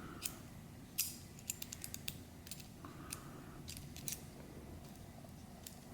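Faint, irregular clicks and taps of small metal pistol parts being handled as a new Apex Tactical trigger is fitted into a Sig Sauer P320.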